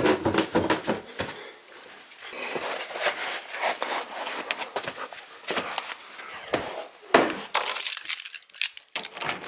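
Scattered light clicks, rattles and rustling, like small metal objects being handled, with brief bursts of hiss near the end.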